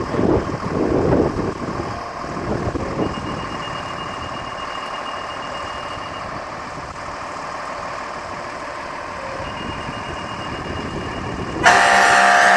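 Fire truck engine running in the station bay, with wind gusting on the microphone at first. Near the end a fire truck air horn gives one loud, steady blast of a little over a second.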